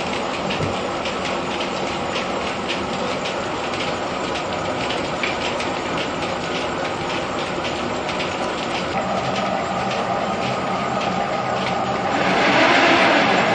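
Mill threshing machinery running with a fast, even clatter. Near the end a louder rushing noise swells over it, like grain being poured into the machine.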